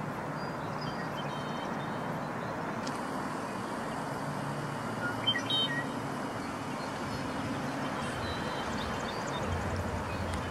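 Steady outdoor background noise with a low hum, carrying faint high bird chirps and one short, louder chirping call about five seconds in.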